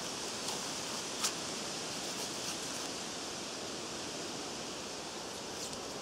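Steady, even outdoor hiss with one short click about a second in.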